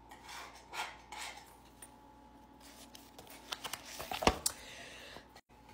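Soft rustling and handling of a glossy magazine's pages, then a cluster of light clicks with one sharp tap about four seconds in as the magazine and phone are moved.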